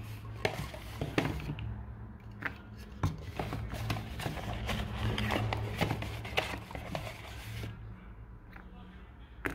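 Handling noise: scattered clicks and rustles of a small plastic mini humidifier and its coiled USB cable being picked up and handled, over a steady low hum. The handling is busiest through most of the clip and thins out near the end.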